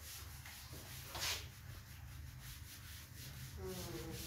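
Board duster rubbing back and forth across a chalkboard in repeated strokes, wiping off chalk writing, with one brief louder noise about a second in.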